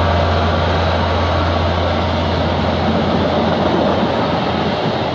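VIA Rail passenger train passing fast and close below: the F40PH diesel locomotive's steady low engine drone, fading about three seconds in as the stainless-steel coaches rush by with a broad rolling rumble.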